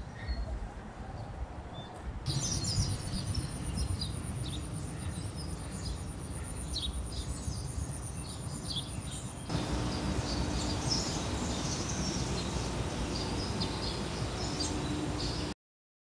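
Outdoor ambience: birds chirping over a steady low rumble, with a thin high whine for the first several seconds. The sound changes abruptly about nine seconds in, the chirping getting busier, and cuts off suddenly near the end.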